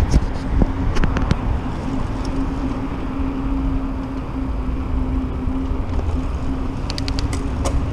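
Mountain bike wheels rolling over smooth concrete, a steady tyre hum with road noise. A few sharp clicks about a second in and again near the end.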